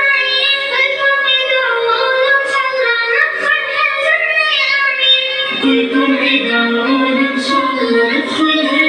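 A recorded song with a high singing voice over music. About halfway through, the melody drops to a lower pitch.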